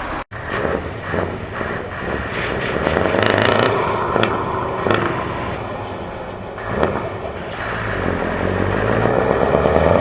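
Truck diesel engine with an open, straight-through exhaust, running and being revved, swelling louder a couple of times. A brief dropout cuts it off just after the start.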